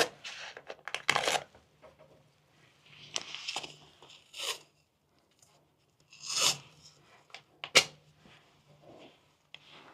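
Adhesive tape being pulled off the roll and torn, in several short ripping pulls, with the sharpest and loudest rip near the end.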